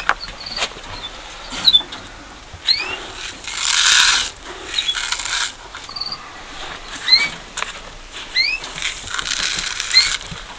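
Aviary birds calling: about a dozen short rising chirps, scattered through the stretch, with three longer bursts of rustling noise between them.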